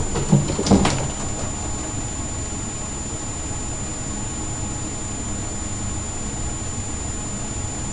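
Steady low hum with a thin, steady high whine, and two short sounds in the first second.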